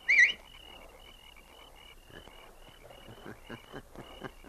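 A man's short rising, wavering whistle at the very start: the signal whistle to the skipper. Under it a regular background chirping, a few chirps a second, with faint taps in the second half.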